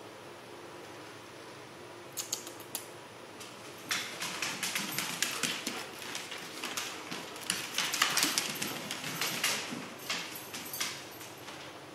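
Corgi puppy running around, its claws clicking and scuffing rapidly on the floor. A few clicks come about two seconds in, then a dense run of them from about four seconds until near the end, loudest in the middle.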